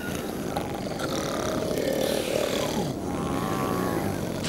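Sleeping cartoon characters snoring: a rough, drawn-out rumble with wavering pitch, as in a cartoon soundtrack.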